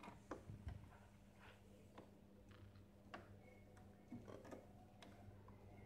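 Near silence broken by faint, irregular small clicks and ticks of a screwdriver turning screws and working against the plastic and metal front panel of an automatic coffee machine.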